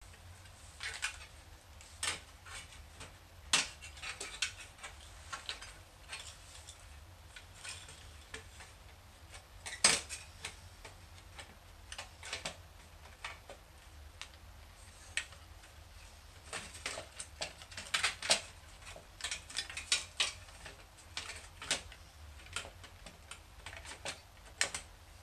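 Metal clicks, knocks and clatter of a hard drive caddy and ribbon cable being handled and fitted into a Macintosh SE's metal chassis. The knocks are irregular, the loudest about ten seconds in, with a busier run of clicks in the second half.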